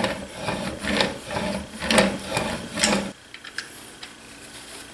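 Chisel in a honing guide being pushed back and forth on a 5,000-grit sharpening stone, honing the bevel: a gritty rasping stroke about once a second, four strokes in all. The strokes stop about three seconds in, leaving only light handling noises.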